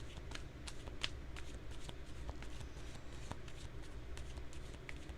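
A tarot deck being shuffled by hand: a steady run of soft flicks and clicks of cards.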